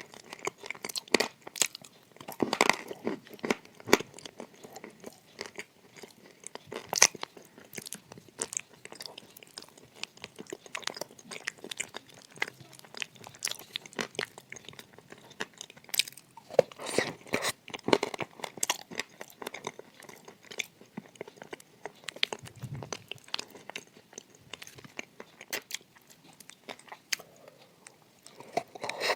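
Edible clay shaped like shortbread cookies being bitten and chewed close to the microphone: a dense run of dry, irregular crunches, with louder bites in clusters a few seconds in and again past the middle.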